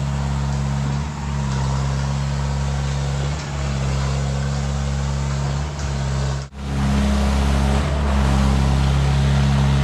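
Concrete pump truck's diesel engine running steadily under load, with a brief dip about every two seconds. A sudden break comes about six and a half seconds in, and after it the engine runs a little louder.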